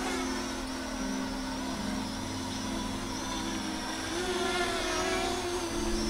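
Parrot Anafi quadcopter's propellers humming as it hovers and manoeuvres low to the ground. The hum's pitch shifts up and down several times as the motors change speed.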